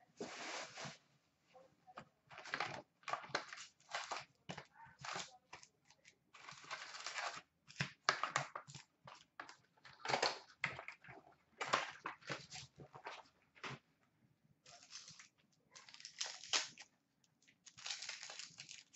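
Trading-card box and its wrapped packs being handled: irregular crinkling and rustling of the packaging, with bursts coming and going throughout.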